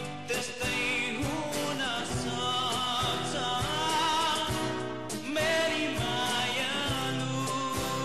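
A man singing a song into a microphone, backed by a live band with a steady beat.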